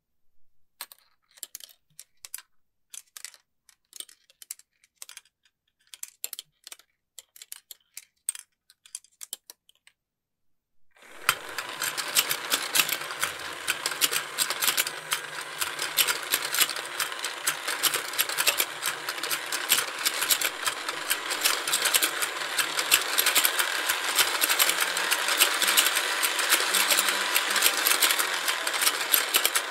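Scattered light plastic clicks and taps for about ten seconds. Then a battery-powered toy fishing game switches on, and its motor-driven rotating ponds of plastic fish clatter steadily as the fish heads open and close.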